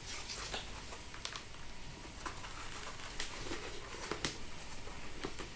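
Soft rustling and scattered small clicks and taps of hands pressing an intercom speaker into the padded ear cavity of a motorcycle helmet's liner.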